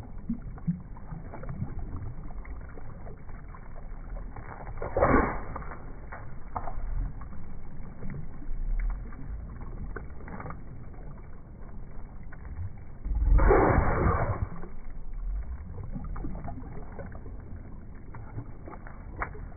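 Pool water splashing and sloshing as a dog bites and dunks her muzzle at air bubbles rising along the pool wall. There are two louder splashes, one about five seconds in and a longer one a little past the middle.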